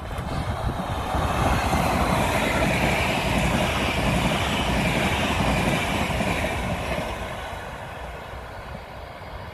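Trenord double-deck electric passenger train passing close by, its rumble and wheel noise swelling about a second in and fading as it draws away.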